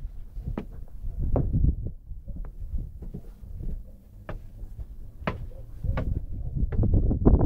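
Footsteps inside a stone tower: irregular low thumps and a few sharper knocks over a low rumble.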